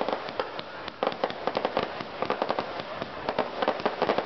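Fireworks going off in a dense, irregular stream of sharp pops and crackles, with a brief lull just before a second in.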